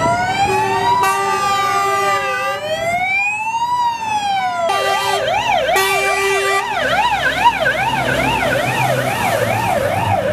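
Fire engine sirens: a slow wail rising and falling about every second and a half, then, after a cut about halfway through, a fast yelp warbling up and down about twice a second, over the low rumble of the truck's engine.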